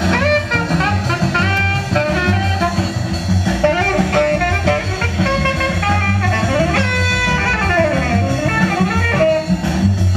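Jazz instrumental music led by guitar, over a steady rhythmic low end.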